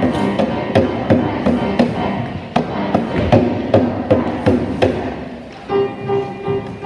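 Hand-held frame drums struck in a steady beat, about three strikes a second, over electric keyboard. The drumming stops after about five seconds and the keyboard goes on with held notes.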